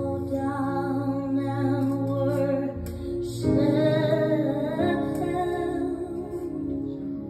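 Woman singing a slow gospel worship song, holding long notes over a soft sustained accompaniment that changes chord about three seconds in.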